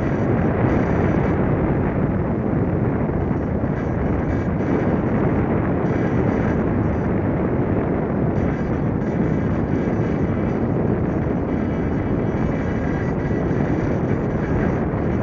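Steady rush of air over the onboard camera's microphone as an unpowered F3K discus-launch glider flies, an even noise with no engine and no changes.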